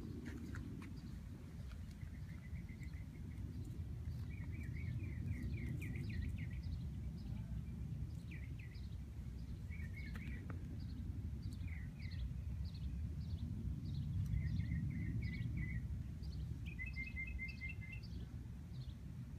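Small wild birds chirping and trilling on and off in quick runs of short notes, over a steady low outdoor rumble.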